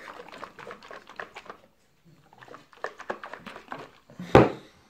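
Shaker of protein shake being shaken by hand: rapid sloshing and rattling strokes that pause briefly about two seconds in, then start again, followed by one loud knock near the end.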